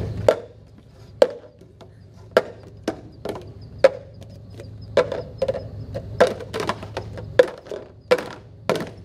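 White cups being speed-stacked on a tabletop: a quick, irregular run of sharp clacks as the cups are set down, nested and swept into a pile.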